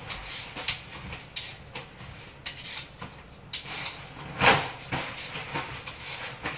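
Blade scraping the skin off a raw sweet potato in short irregular strokes, about one a second, with a louder, longer scrape about four and a half seconds in.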